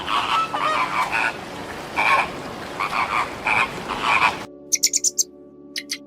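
Rapid repeated animal calls over a noisy background that stop abruptly about four and a half seconds in, followed by a quick run of five short high chirps and then two more.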